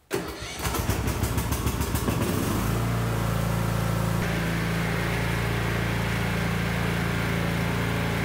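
Troy-Bilt Bronco riding lawn mower's engine being started: a couple of seconds of rapid, even cranking strokes, then it catches and settles into a steady run.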